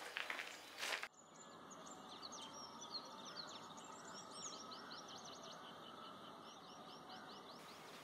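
Faint outdoor ambience with many quick, high bird chirps, starting about a second in after an abrupt change in the background. A few light scuffs or knocks come just before.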